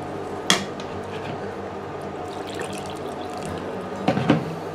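Metal spoon stirring thick, wet roasted-corn mash in a hot stainless steel pot, a sloshing, liquid sound. A sharp clink of metal on the pot comes about half a second in, and two more knocks near the end.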